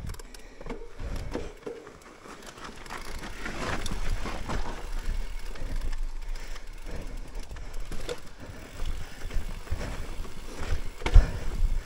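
Mountain bike riding down a rough trail, heard from an action camera on the rider: tyres rumbling over dirt and rocks with rattles and knocks, the loudest a hard knock about eleven seconds in.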